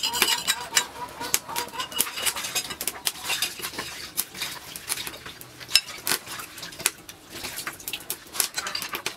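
Eating utensils clinking and scraping against a dish during a meal, in irregular sharp clicks.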